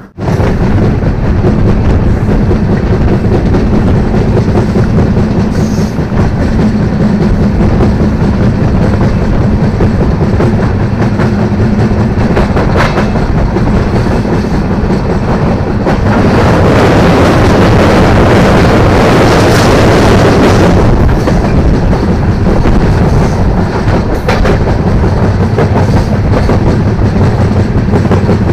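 Running noise of an express train's LHB coach at speed: a steady rumble of wheels on rails with clickety-clack over the rail joints and a few sharp clicks. It grows louder for about five seconds in the middle.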